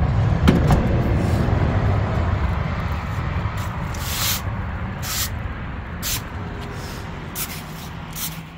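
Broom bristles sweeping across a tiled floor in short swishes, about one a second, over a low rumble that slowly fades. A couple of sharp clicks come about half a second in.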